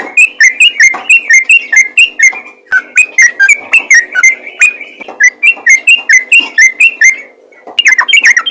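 Yellow-vented bulbul (trucukan) in rapid continuous song: a fast run of loud bubbly chirping notes, about four a second, breaking off briefly about seven seconds in and then resuming. A steady low hum runs underneath.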